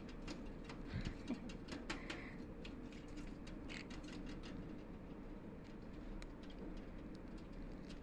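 Light, scattered clicks and taps at a wire bird cage as a finger plays at the bars beside a lovebird, most of them in the first half, over a faint steady hum.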